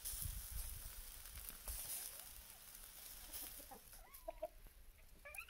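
A few faint, short animal calls, clucking-like notes, about four seconds in and a rising call near the end, over a low rumble.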